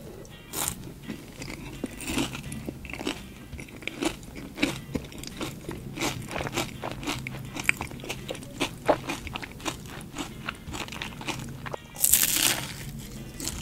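Close-miked bites and chewing of a McDonald's caramel chocolate pie, its crisp crust crunching with many small crackles, and a loud crunching bite about twelve seconds in.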